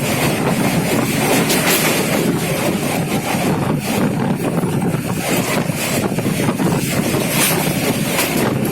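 Steady rumble of a moving train, with wind buffeting the microphone.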